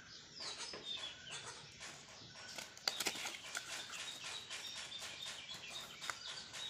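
A small Rubik's cube box being handled, with scattered taps and rustles and a sharp click about three seconds in, while birds chirp in the background.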